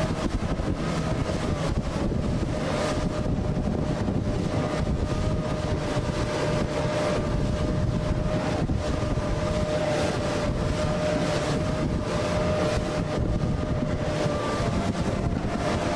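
Wind buffeting the microphone and rushing water heard from a boat under way, with a steady whine and its faint overtones running underneath.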